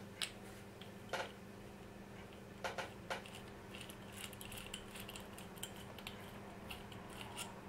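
Scattered light metallic clicks and ticks of a small box wrench turning an M3 nut on a bolt through a 3D-printed plastic adjustment wheel.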